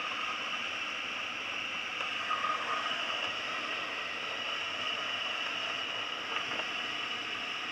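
Steady rush of air streaming over the canopy of a Schleicher ASK 23b glider in flight, heard from inside the cockpit, briefly a little louder about two and a half seconds in.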